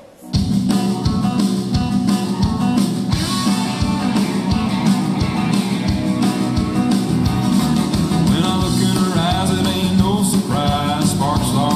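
Recorded song with a steady beat and a singing voice, starting suddenly in the first half second.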